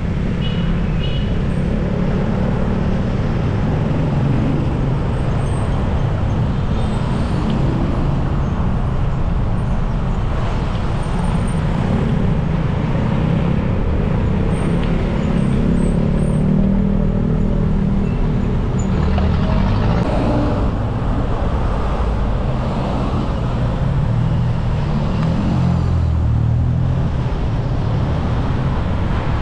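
Steady traffic noise heard from a mountain bike riding in city traffic: cars, vans and motorcycles running close by, with a low rush of wind over the action camera's microphone.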